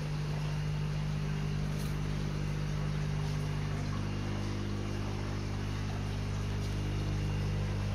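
A steady low mechanical hum made of several unchanging tones, with a few faint ticks.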